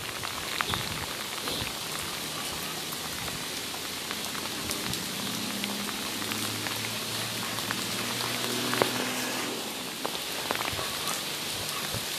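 Heavy rain falling steadily: an even hiss with many scattered sharp ticks of nearby drops.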